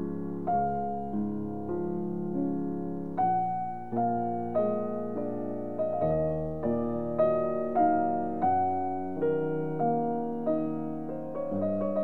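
Background music: a gentle piano piece, with notes and chords struck about every half second and left to ring out.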